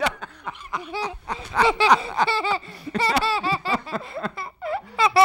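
A young boy and a man laughing together, in quick repeated giggles.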